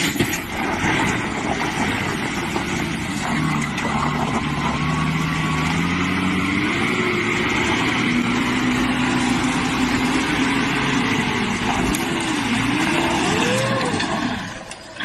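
Light box truck's engine straining hard on a steep dirt climb, its revs rising and falling. The revs climb higher near the end, then the sound drops off.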